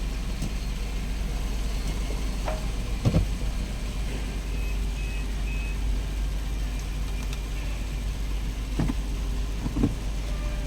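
Vehicle engine idling steadily, with a few knocks and a short run of faint beeps.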